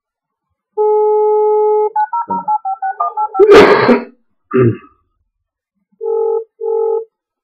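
Telephone handset: a steady dial tone for about a second, then a quick run of touch-tone keypad beeps as a number is dialled. A loud rustle of handling noise and a short knock follow, and two short beeps come near the end.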